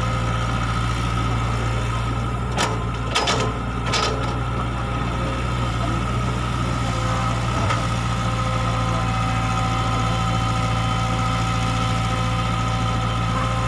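E120B excavator's diesel engine running at a steady speed, a constant low drone with a steady higher whine over it. A few short knocks come about three seconds in, and one more about halfway through.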